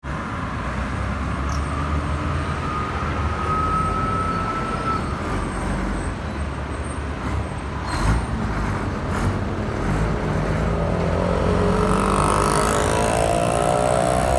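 Road traffic on a busy city street: cars, a bus and auto-rickshaws driving past with a steady rumble. Near the end, a small engine rises in pitch as an auto-rickshaw accelerates past close by.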